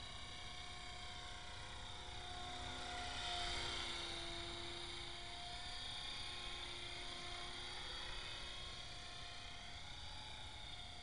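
Electric EXI 450 Pro RC helicopter in forward flight, its rotor blades whirring with a steady motor and gear whine. It grows loudest as it passes nearest, about three to four seconds in, then eases off as it moves away.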